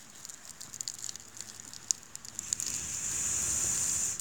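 Campfire crackling with scattered sharp pops. About halfway in, a hissing rush swells as the fire flares up, then stops abruptly.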